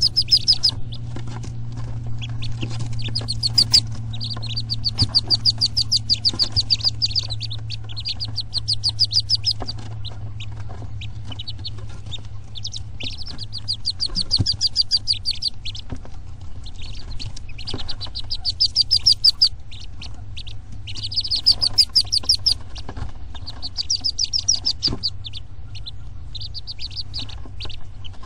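Wood duck ducklings peeping: repeated bursts of rapid, high-pitched peeps, each burst a second or two long, with short gaps between.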